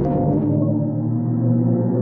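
A sonified space recording, electromagnetic signals from a spacecraft instrument turned into sound. It is a dense, eerie drone of held low tones, and about half a second in, short stepped tones give way to the steadier drone.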